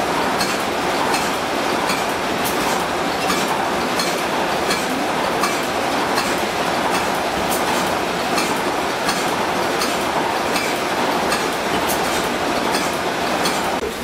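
Vintage horizontal single-cylinder stationary engine running, its flywheel and flat belt drive turning, with a steady mechanical clatter and a regular click about twice a second.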